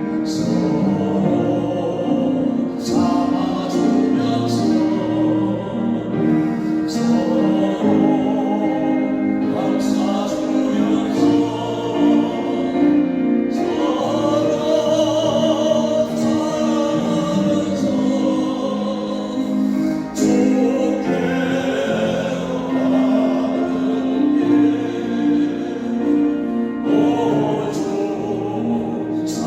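Several singers performing a Christian praise hymn over sustained instrumental accompaniment.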